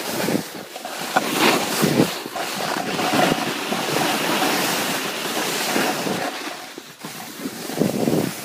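Snow hissing and scraping under a rider sliding fast downhill, with wind rushing over the microphone. The rush swells and eases throughout and dips briefly near the end.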